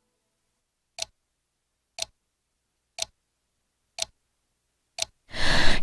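Steady ticking: five sharp ticks exactly a second apart, then a loud, noisy sound starts near the end as the song comes in.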